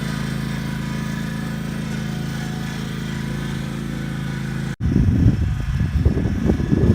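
Lawnmower engine running at a steady pitch. Near the end the sound cuts off abruptly and gives way to a louder, uneven low rumble.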